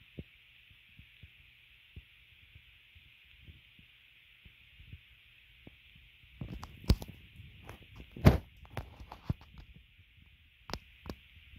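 Handling noise: scattered soft clicks, then a cluster of knocks and rubbing from a little past the middle, loudest near the end of that cluster, with two more knocks near the end. A faint steady hiss runs underneath.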